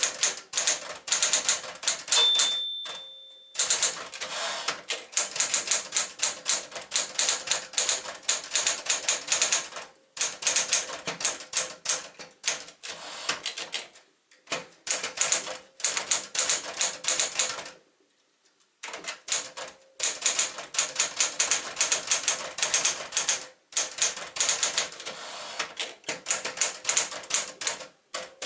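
Sears Citation portable typewriter (a rebadged SCM Smith-Corona Galaxie) being typed on: fast runs of sharp key-and-typebar strikes, broken by several short pauses. A brief ringing tone sounds about two seconds in.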